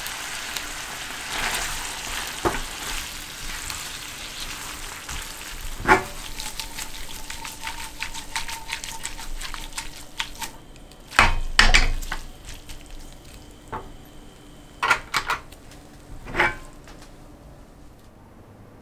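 Spaghetti with canned mackerel sizzling in a frying pan over a gas flame, then the pan being tossed, with several sharp knocks of the pan against the stove as the sizzle dies down.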